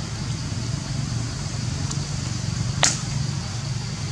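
Steady low rumble of road traffic with a steady high hiss over it, and one sharp click about three seconds in.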